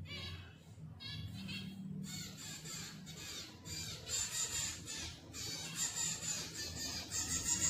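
Zebra finch calls: rapid, harsh, repeated squawks in quick succession, getting denser and louder from about four seconds in.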